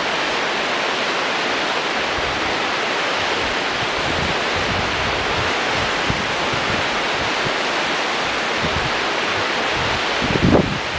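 Rio Grande whitewater rapids rushing in a steady hiss, with wind buffeting the microphone in irregular low gusts, one stronger gust near the end.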